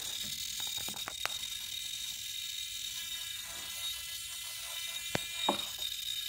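Swashplate servos on an electric RC helicopter whining steadily as the flybarless unit drives them while the model is tilted by hand. A few sharp clicks come from handling the frame, the loudest about five and a half seconds in.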